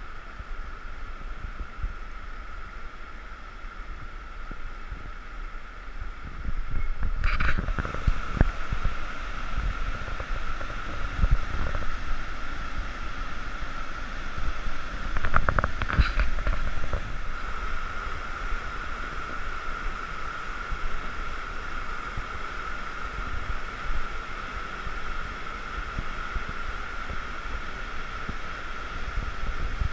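Whitewater rushing steadily through a flooded river rapid, getting louder about six seconds in. There are a couple of short knocks near the middle.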